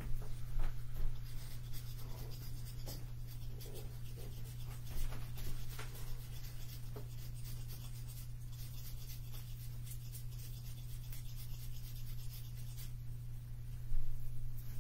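Scratchy rubbing and rustling with scattered light ticks over a steady low hum, a little louder near the end.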